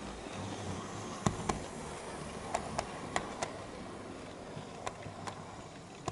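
00 gauge model railway coaches rolling past on the track: a steady running rumble, with sharp clicks coming mostly in close pairs as each bogie's wheels pass over the rail joints.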